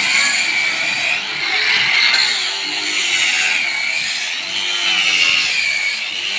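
Electric angle grinder with an abrasive sanding disc running against a wooden door-frame timber, finishing its rounded edge. Its steady high whine wavers up and down as the disc is pressed into the wood and drawn along it.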